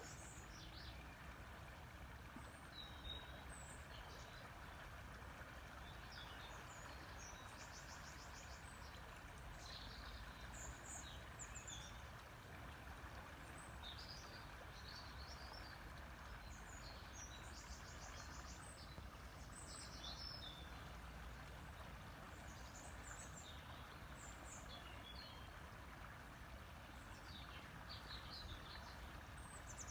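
River water flowing steadily, with small birds chirping and giving short rapid trills throughout.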